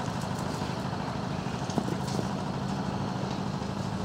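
Steady low machine hum, as of an engine or motor running, with one faint click about two seconds in.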